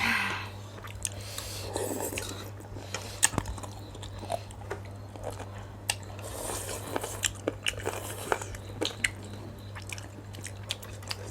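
Close-up mukbang eating sounds of chicken thukpa noodle soup being eaten: chewing with many small clicks and smacks, over a steady low hum.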